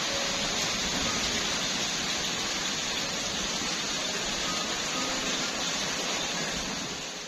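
Steady rain falling, an even hiss with no break, fading out near the end.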